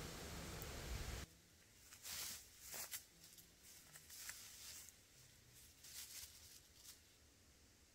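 Steady rushing of a waterfall, which cuts off about a second in. Then faint footsteps crunching through dry fallen leaves: a handful of separate crunches and rustles as someone walks through leaf litter.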